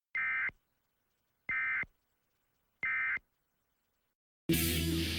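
Emergency Alert System end-of-message data bursts: three short buzzy bursts of digital tones, about a second and a half apart, marking the end of the alert. Music starts abruptly near the end.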